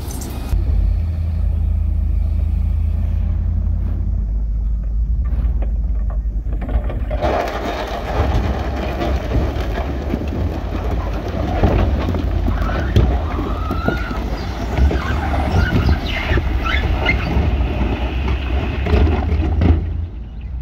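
Heavy diesel construction machinery running with a steady low engine rumble. About seven seconds in, a loud clattering, knocking noise joins it, with a few brief squeals, and it drops away just before the end.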